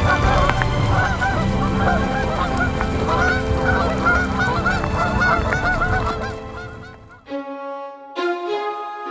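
A large flock of Canada geese honking over and over as they take off from the water. The honking cuts off suddenly about seven seconds in and music begins.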